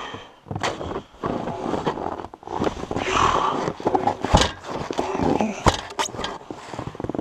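Boots crunching and scuffing in deep snow while a heavy log is heaved up by one end against a homemade sheet-metal skid sled, giving irregular scrapes and sharp knocks, the loudest a little past the middle.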